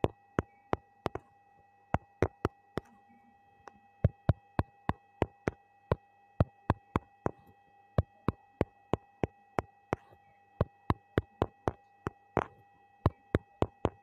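Sharp clicks of tapping a smartphone touchscreen, coming unevenly about two or three times a second, over a faint steady electrical whine.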